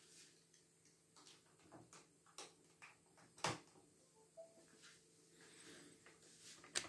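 Near silence broken by a few faint clicks and taps, the loudest about three and a half seconds in, from a hand plugging a USB card reader into a laptop and working its keys.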